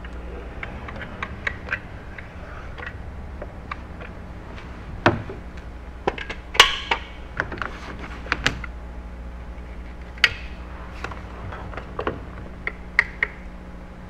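Scattered clicks, knocks and light metallic clinks of hand work with a caulking gun and a metal flashing panel being applied and pressed into place, the loudest about five seconds in and again near six and a half and ten seconds in. A low steady hum runs underneath.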